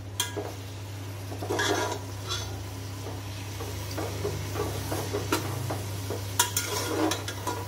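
Metal spoon stirring onions, tomatoes and ginger-garlic paste in a steel pot, scraping the bottom with occasional clinks against the side, over the light sizzle of the mixture frying in oil. A steady low hum runs underneath.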